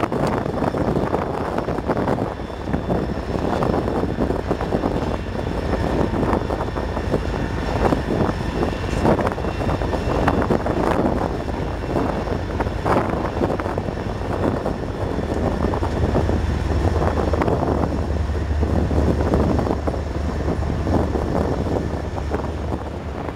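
Diesel freight locomotives passing at close range with their engines running, followed by enclosed autorack freight cars rolling by with steady wheel-on-rail rumble and clatter. The low rumble grows stronger about two-thirds of the way in as the cars go by.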